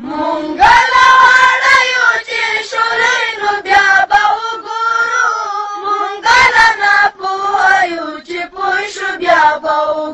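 A single high voice singing a Pashto national song (milli naghma) in long held, wavering melodic lines.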